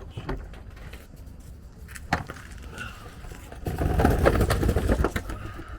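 Handling noise of a speedometer cable being routed up from under a Humvee: a single knock about two seconds in, then a second or so of loud scraping and rattling.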